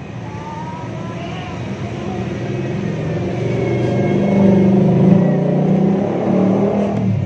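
An old car's engine running through a freshly fitted aftermarket stainless racing muffler, revved so the deep, bassy exhaust note builds steadily louder over the first four or five seconds and then holds.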